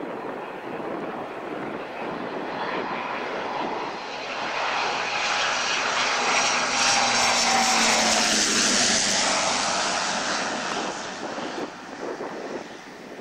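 Twin turboprop engines of a Fairchild Swearingen Metro passing close on landing approach with a high turbine whine and propeller drone. The sound builds to a peak about midway, drops in pitch as the aircraft goes by, then fades. There is wind noise on the microphone.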